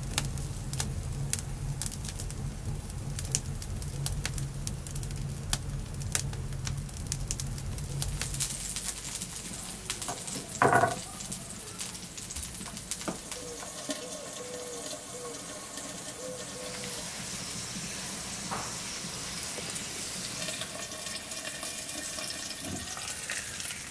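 Wood fire crackling, with a low rumble of the flames, for about the first eight seconds. After that it is quieter, with a short loud sound about eleven seconds in and a few faint scattered chirps and clicks.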